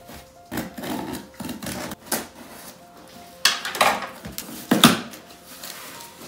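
Scissors cutting the packing tape on a cardboard box and the cardboard being worked open: several short, sharp cutting and tearing sounds spread out over a few seconds.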